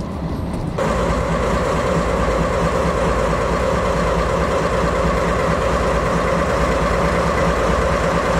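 JNR DD51 diesel-hydraulic locomotive's V12 diesel engines idling close by, a steady pulsing rumble with a constant whine over it, louder from about a second in.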